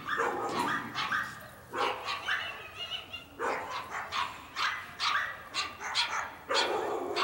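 Dog barking in a rapid series of short barks, two or three a second, with a brief lull about three seconds in.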